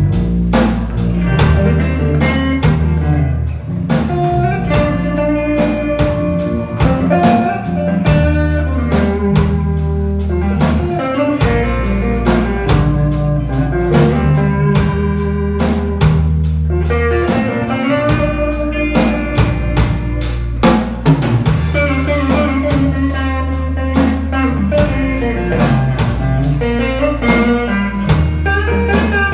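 Live band playing a slow blues instrumental passage with no singing: electric guitar lines over a drum kit with regular snare and rimshot hits and a sustained bass line.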